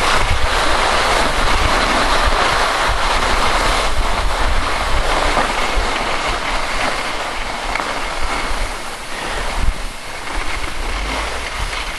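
Skis sliding over packed snow, a steady hiss with wind buffeting the microphone, easing off a little in the last few seconds.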